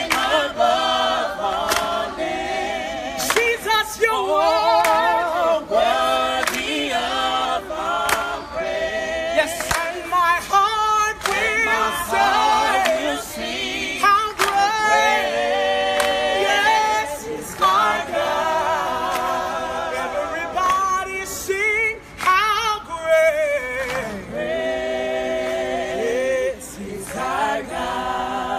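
A group of voices singing a worship song together, without instrumental backing.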